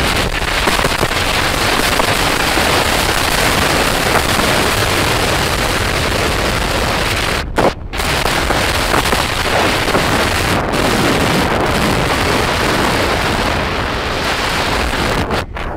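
Loud wind buffeting the microphone of a phone carried on a moving motorbike, a dense rushing roar with road noise under it. It drops out for a split second about seven and a half seconds in, and again just before the end.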